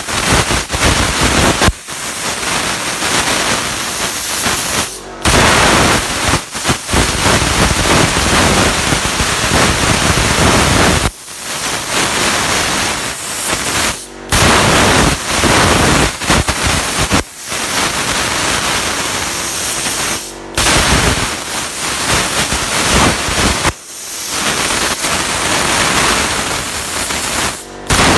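CNC plasma cutting torch cutting steel sheet: a loud, steady hissing rush of the plasma arc. It breaks off sharply for a moment several times, every three to six seconds.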